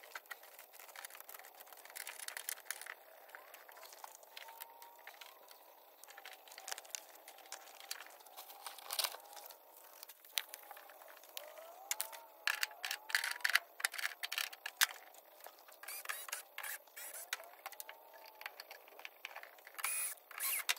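Faint, irregular clicks, taps and scrapes of hands and tools working on a mini-split outdoor unit, taking off its access plate and handling the wiring at its terminals.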